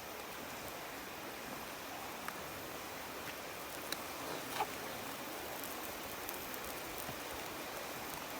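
Steady rushing of a river with a few sharp pops from a burning wood campfire, the loudest a little after four and a half seconds in.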